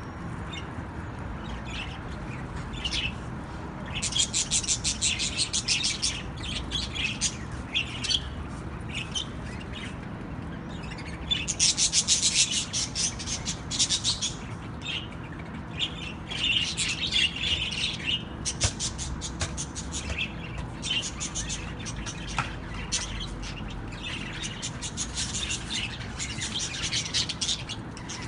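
Small pet cage birds chirping and trilling in rapid bouts of quick high notes, each bout lasting one to a few seconds, over a steady low hum.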